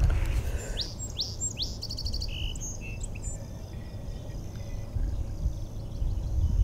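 Wild birds chirping, with a few quick rising notes and a short rapid series of notes about a second in, over a low steady background noise.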